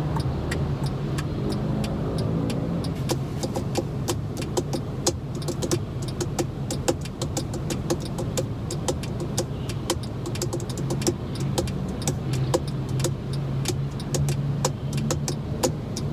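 Car engine idling, heard from inside the cabin as a steady low hum, with many quick, irregular clicks and light taps over it.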